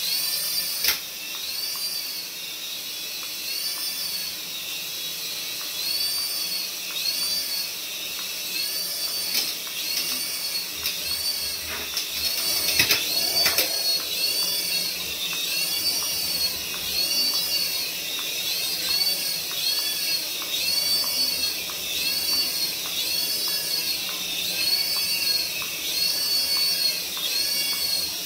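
Tiny electric motors and twin stacked rotors of a toy RC helicopter whining high, the pitch rising and falling about once a second as it hovers. A few knocks a little before the middle.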